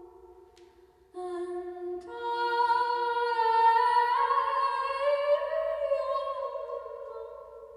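Wordless female singing or humming in long held notes that step from one pitch to the next: one note dies away about a second in, a new one starts, the sound swells through the middle and fades toward the end.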